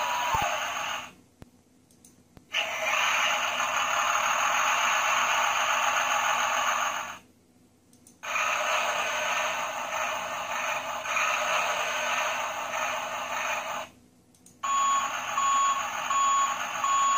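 Tonka toy garbage truck's built-in electronic machine-noise sound effects playing from its small speaker, each run triggered remotely by an incoming IoT event. A harsh, noisy clip sounds several times, each lasting a few seconds and cutting off abruptly after a short pause. The last run carries a row of short, even beeps.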